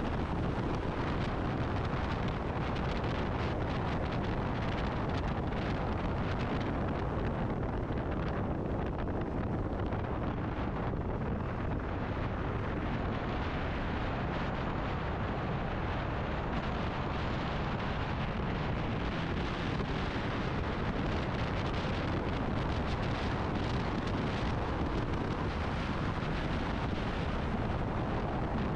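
Steady wind noise on the microphone of a motorcycle riding at speed, with the engine and road noise blended into the rush.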